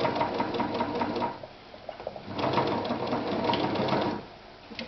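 Victoria 124 domestic electric sewing machine stitching through four layers of leather in two runs of about a second and a half, with a short pause between. It feeds the thick layers smoothly, without catching.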